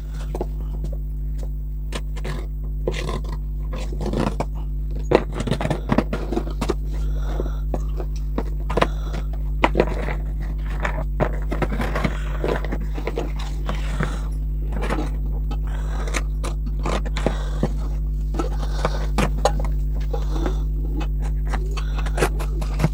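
Cardboard shipping box being handled and its packing tape cut and pulled off: irregular scraping, rustling and tearing, with small knocks, over a steady low hum.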